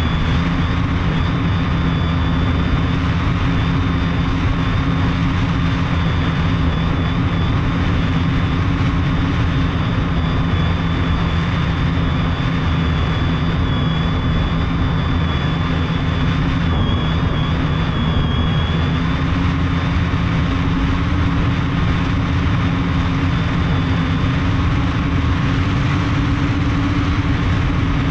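Multirotor drone's brushless motors and propellers humming steadily in flight, picked up by a camera on the airframe, with a thin high whine and a rush of wind noise. The low hum rises slightly in pitch about two-thirds of the way through.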